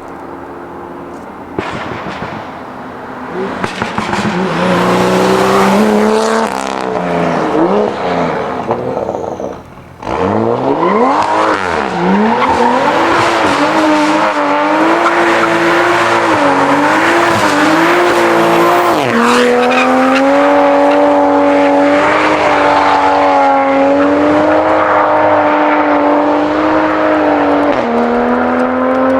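Modified Toyota GR Supra Mk5 engine revving hard, its pitch rising and falling repeatedly. It drops off briefly about ten seconds in, then is held at high revs with a slight wobble for most of the last ten seconds.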